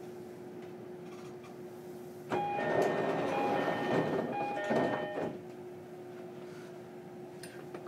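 Inside a stationary JR Kyushu 305 series electric train: a steady electrical hum, then about two seconds in a three-second burst of noise with short chime tones at several pitches as the doors close. The hum carries on afterwards.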